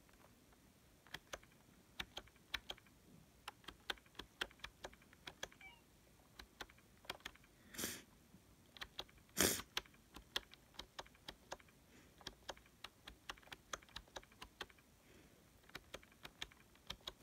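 Typing on a Logitech K480 Bluetooth keyboard: quiet, irregular key clicks at a practice pace, with two louder thumps near the middle.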